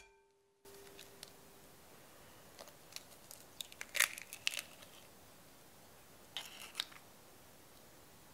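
An egg cracked on the rim of a glass bowl: a sharp crack with small crunches of shell about four seconds in, then the shell crackling as it is pulled apart around two and a half seconds later.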